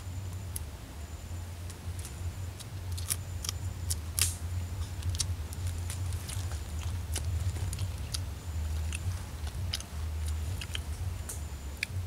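Boiled mangrove crab shells and claws being cracked and picked apart by hand, giving scattered sharp cracks and clicks, with chewing. A low steady hum runs underneath.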